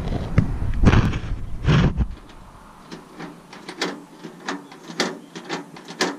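Old pickup truck door latch and newly fitted lock being worked: heavy knocks and rumble of the door for the first two seconds, then a run of sharp clicks, two or three a second, as the mechanism is operated.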